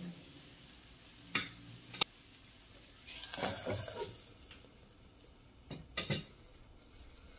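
Zucchini pancakes sizzling in oil in a stainless steel frying pan. A metal spoon clinks against the pan twice, a glass lid clatters onto the pan about three seconds in, and two more sharp clinks come near the end.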